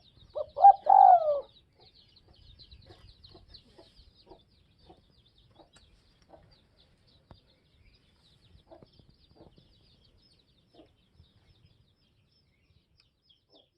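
A spotted dove cooing once loudly, a short run of low notes about half a second in. Fainter short low calls are scattered through the rest, over a steady faint high-pitched chirping.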